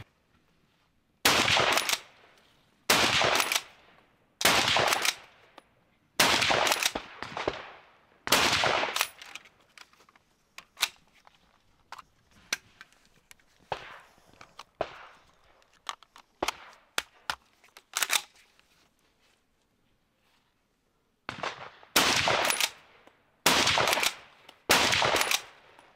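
Rapid rifle fire from a Beretta BRX1 straight-pull .30-06: five shots about a second and a half apart, then a pause of small clicks and clatter while the magazine is changed and the action is worked, then three more quick shots near the end.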